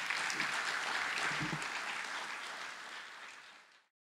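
Audience applauding, a dense, steady clapping that fades and then cuts off suddenly near the end.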